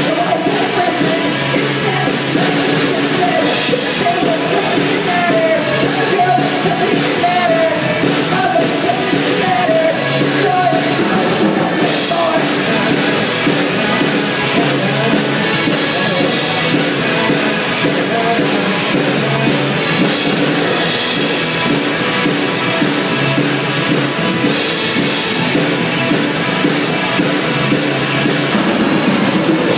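Live rock band playing: electric guitars, bass and a drum kit, steady and loud throughout. A wavering, bending melody line rides on top for the first ten seconds or so.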